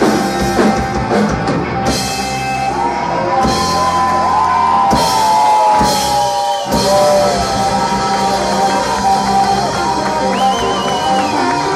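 Live rock band: electric guitar in long held tones that slide up and down in pitch, over bass and drums with several cymbal crashes.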